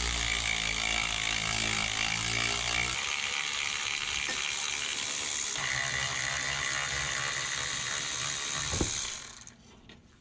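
Milwaukee cordless electric ratchet running continuously as it spins a bolt. Its motor note shifts about three seconds in and again near six seconds, and it stops about a second before the end.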